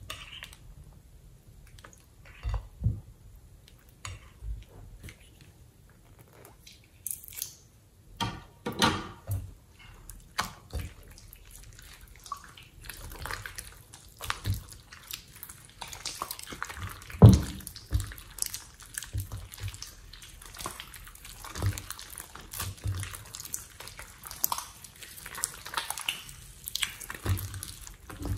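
Thick, sticky slime being squeezed, stretched and kneaded by hand: irregular wet squelches with sticky pops and clicks, sparse at first and busier from about halfway.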